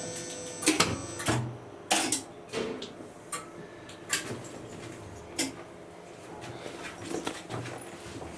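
Irregular sharp clicks and knocks from a 1961 Schindler elevator's machinery, with a faint hum under them. A fading hum from the end of a run dies away at the start.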